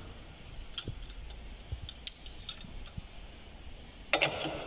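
Small metallic clicks and clinks as a motorcycle fork tube and its seal-fitting tools are handled while new fork seals are fitted, with a denser run of clinks about four seconds in.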